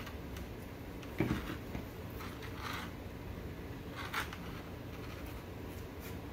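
Handling noises at a workbench: a soft knock about a second in, then brief rustles and scrapes as a foam-and-wire frame and a plastic zip tie are handled, over a steady low hum.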